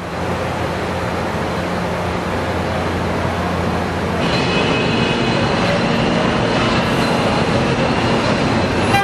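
Car assembly plant floor noise: a steady mechanical rumble and hum of line machinery, joined about four seconds in by several high, steady whining tones.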